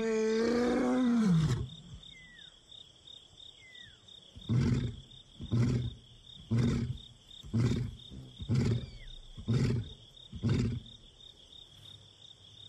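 Adult male lion roaring: one long, full roar that rises and holds, then a run of seven short grunts about one a second, fading out, the usual roaring bout of a lion. It is a contact call to his brother.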